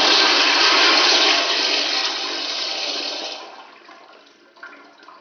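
Toilet flushing: a loud rush of water swirling down the bowl, fading after about three and a half seconds to a faint trickle.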